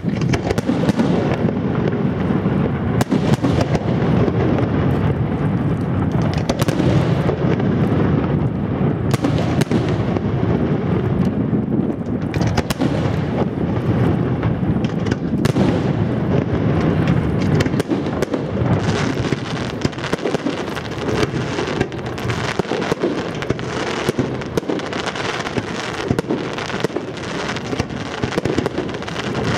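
Fireworks display: a continuous barrage of booming shell bursts laced with sharp cracks. About two-thirds of the way in the deep booming eases and rapid crackling takes over.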